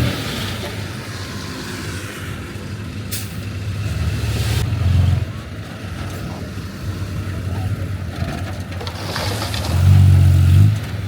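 Heavy earthmoving machine's diesel engine running, with the engine note rising under load twice: about four seconds in and again near the end.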